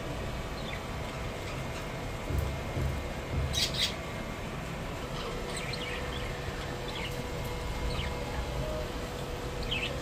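Budgerigars chirping in short, scattered calls, with one louder, harsher burst about three and a half seconds in.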